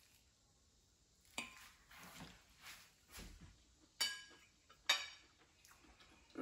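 A metal fork clinks twice against a china dinner plate, about a second apart, each strike ringing briefly. A few faint, soft sounds of the fork working the food come before.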